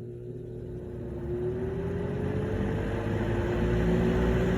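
Lasko 3733 box fan starting up on its low setting: the motor hum rises slightly in pitch and the whoosh of air grows louder over the first few seconds as the blades spin up.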